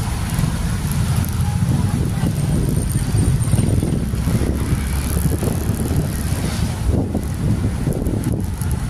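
Steady riding noise from a moving motorcycle: a low rumble of wind on the microphone mixed with engine and road noise.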